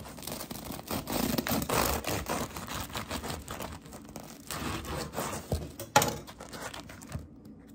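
A knife sawing through the crisp crust and crumb of a sourdough loaf, with rough scraping and crackling strokes. A single sharp knock on the wooden board follows about six seconds in.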